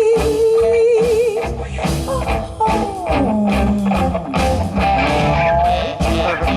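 Live rock band playing an instrumental passage between vocal lines, with electric guitar, bass and drums. It opens on a held note with vibrato that ends about a second and a half in, followed by sliding guitar lines over the beat.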